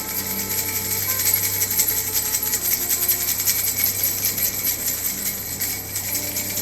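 Baby rattle toy shaken without pause, a fast steady rattling and jingling.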